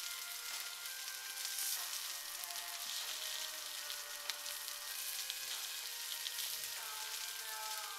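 Soft background music of sustained notes that change every second or so, over a steady hiss.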